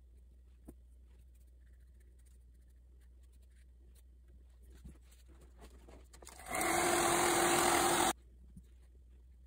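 Hair dryer switched on for about a second and a half to dry wet gouache paint: a steady rush of air with a hum, cutting off suddenly. Before it, a few faint taps of the brush on the paper.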